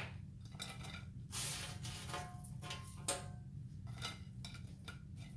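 Dishes and utensils clinking as fries are served onto a plate: a series of short knocks and scrapes, some with a brief ring, over a steady low hum.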